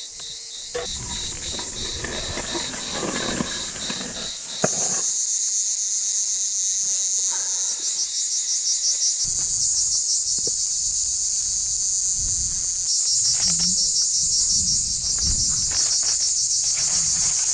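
A loud chorus of insects: a high, rapidly pulsing buzz that jumps louder about five seconds in and again near thirteen seconds. Beneath it are a few soft knocks and scrapes as a foil-covered clay casserole is handled.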